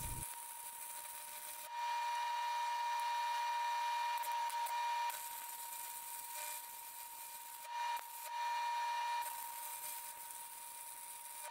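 Arc welding along a steel canister seam: the arc hisses and crackles, louder from about two to five seconds in and again briefly around eight to nine seconds, with a steady thin high tone underneath.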